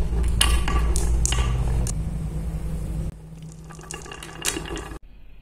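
A batch of small balls rolling down a carved wooden marble-run track with wavy grooves: a steady rumble with sharp clicks as they knock against each other and the groove walls. The rumble stops about three seconds in, leaving a few scattered clicks as the balls settle in the curves.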